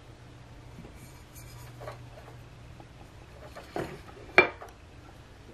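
Cover of a Vestax PDX-2000 turntable motor being pulled off and handled: faint rubbing and scraping, then a knock and a sharp click a little after four seconds in as the parts knock together.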